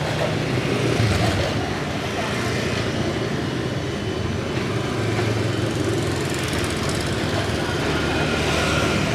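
Steady street traffic, with motorbike engines running and passing.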